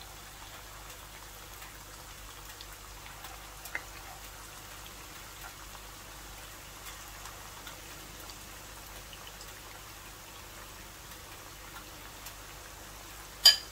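Battered boneless chicken pieces deep-frying in hot oil over a medium flame: a steady, crackling sizzle of bubbling oil, like light rain. One sharp click near the end.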